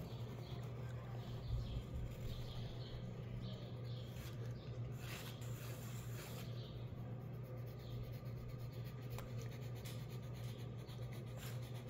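Graphite pencil scratching and sketching on paper in short irregular strokes, faint over a steady low hum.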